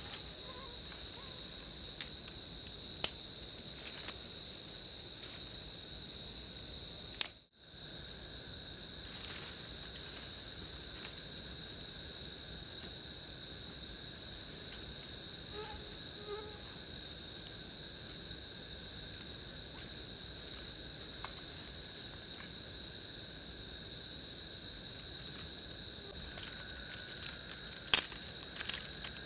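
Night insects chirring steadily at a high pitch, with a second, lower insect tone joining about a third of the way in. Scattered sharp clicks and snaps of dry twigs being handled and broken sound over it, loudest near the end; the sound drops out briefly about a quarter of the way in.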